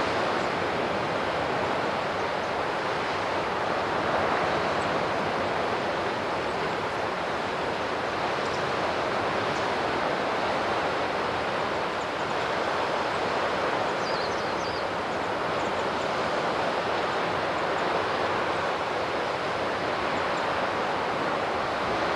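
Sea surf rushing steadily against the shore, swelling gently from time to time, with wind.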